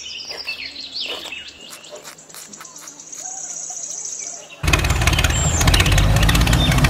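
Birds chirping over a steady high hum, with a few faint clicks. About four and a half seconds in, a loud tractor engine sound starts abruptly and keeps running.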